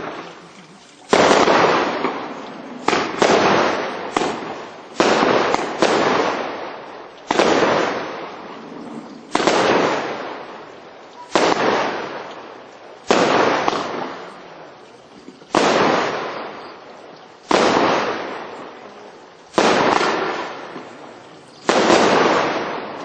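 A 16-shot, 200 gram consumer fireworks cake firing shot after shot, each a sharp bang followed by a fading tail, coming about every two seconds with a few in quick pairs.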